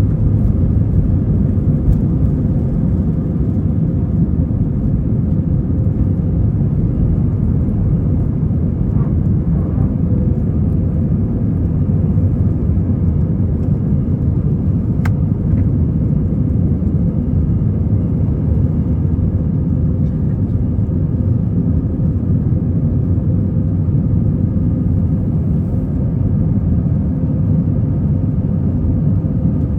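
Cabin noise inside an Airbus A321: a steady, deep rumble of jet engines and airflow with no rise or fall, and a single faint click about halfway through.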